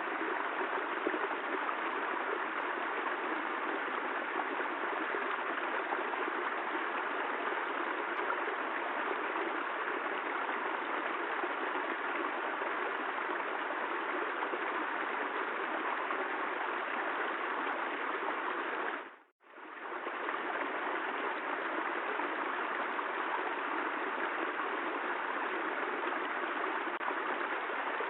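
Steady rushing water noise, dense and even, that dips to silence for a moment about two-thirds of the way through and quickly fades back in.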